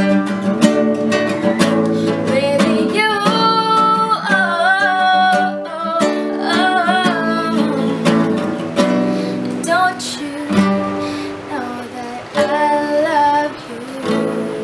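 Strummed nylon-string classical guitar accompanying a young woman singing, with the voice coming in phrases over the steady chords. The playing falls away near the end.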